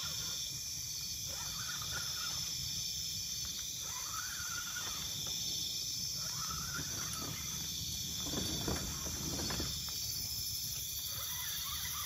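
Steady high-pitched chorus of night insects, crickets and the like, over a low steady rumble, with a few faint rising-and-falling calls every couple of seconds.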